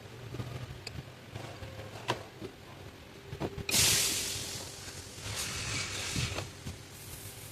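A few sharp metal clinks of hand tools working on the engine, then a sudden loud hiss about halfway through that fades away over a second or so, and a softer hissing stretch shortly after.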